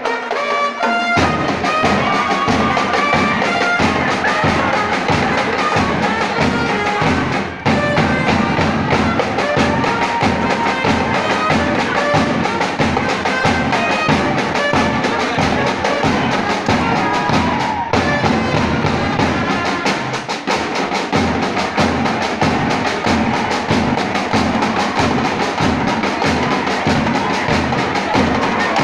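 Live Mexican banda, brass and drums, playing an upbeat tune with a steady driving beat.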